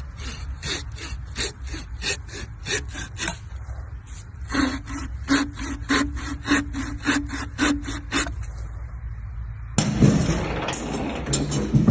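Rhythmic back-and-forth scraping strokes, about four a second, with a short pause about three seconds in, ending after about eight seconds. Near the end, a different steady noisy sound takes over.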